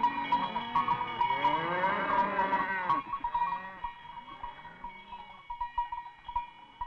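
Several cows mooing over one another while their cowbells clank, as a herd passes. The mooing is thick for about three seconds, then thins out and fades as the bells keep ringing more faintly.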